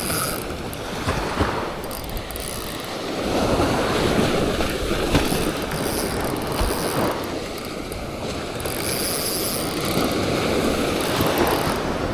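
Fishing reel being wound in, a whirring clicking retrieve, while fighting a hooked tailor from the beach, over surf breaking and wind on the microphone.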